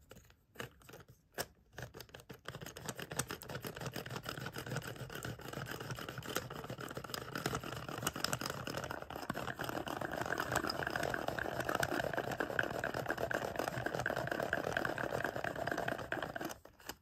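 Baby Alive toy food being stirred in a small plastic cup: a steady, rapid scraping and clicking that grows louder about halfway through and stops shortly before the end.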